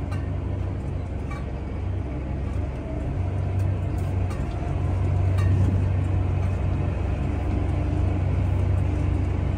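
A vehicle engine running steadily, a low continuous drone.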